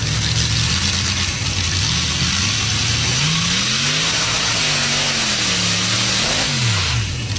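An engine running loud under a steady hiss, its pitch steady at first, then rising and falling a few times in the second half as the revs change.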